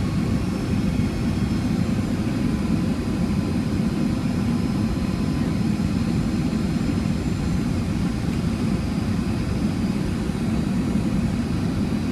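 Steady cabin noise inside a Boeing 757-200 in flight: a low, even rush of airflow with a faint steady whine from its Rolls-Royce RB211-535E4B engines.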